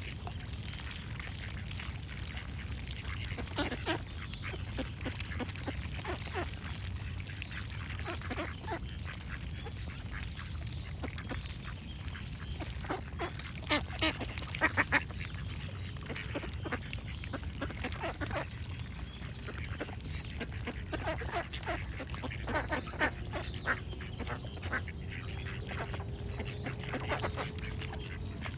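Ducks quacking in repeated short bursts, the loudest run about halfway through and more clusters in the second half, with birds singing behind them over a steady low rumble.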